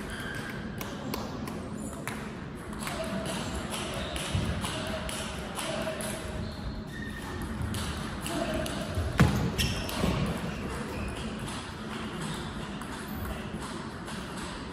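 Table tennis ball clicking off the bats and bouncing on the table in a rally, with a louder knock about nine seconds in.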